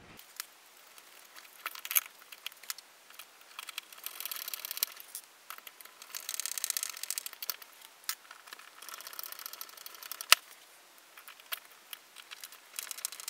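A screwdriver driving small screws into a 3D-printed plastic speaker enclosure, in short bursts of ticking and scraping as the screws cut into the plastic, with scattered small clicks of parts being handled and one sharp click about ten seconds in.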